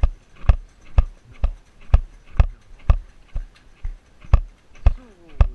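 Helmet-mounted GoPro Hero camera clicking against its mount about twice a second in an even rhythm: the camera has worked loose from the helmet.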